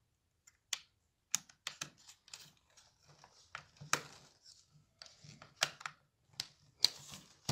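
Screwdriver turning a contactor's terminal screw down on a wire: irregular light clicks and scrapes, the sharpest about four seconds in and near the end.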